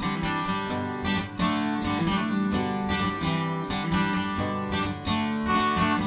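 Background music: a strummed acoustic guitar playing chords in a steady rhythm.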